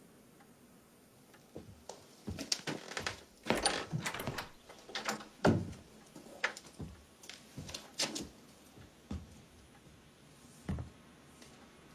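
An irregular run of knocks and clicks for several seconds, then a single knock near the end.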